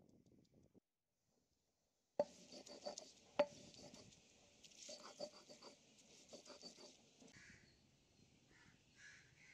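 Stone roller knocking and grinding ginger, garlic and turmeric on a stone grinding slab: a string of sharp knocks and scrapes, starting about two seconds in after a moment of silence. Crows cawing faintly near the end.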